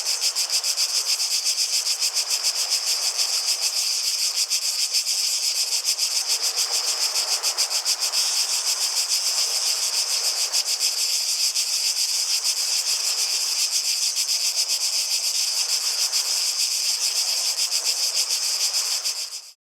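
Cicadas singing in a loud, steady chorus with a fast throbbing pulse, about four to five beats a second, over a faint rushing sound. It fades and cuts off sharply near the end.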